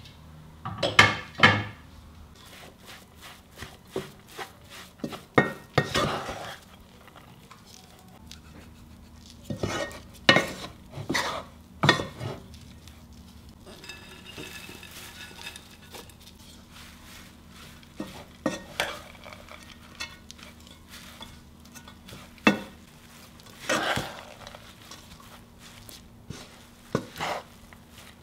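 Kitchen clatter: glass bowls knocking on the rim of a granite-coated pan as chopped herbs and vegetables are tipped onto bulgur, then a wooden spatula stirring and scraping in the pan. The clinks and knocks come in scattered clusters, with quiet between them.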